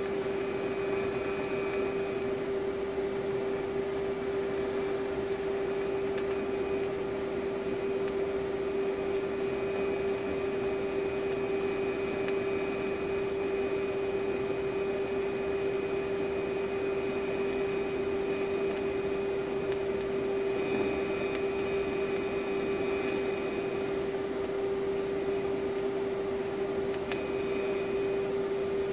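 TIG arc from an AHP Alpha-TIG 200x welder running at about 60 amps on steel tubing while filler rod is fed in, a steady hum over hiss that holds even without a break.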